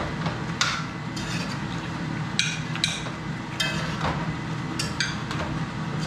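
Metal spoons clinking and scraping against a ceramic plate and a cooking pot, several short clinks spread through, over a steady low hum.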